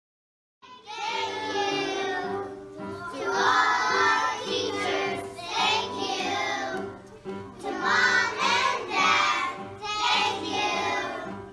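A song: a high voice sings a melody in phrases over steady backing music, starting about half a second in and stopping abruptly at the end.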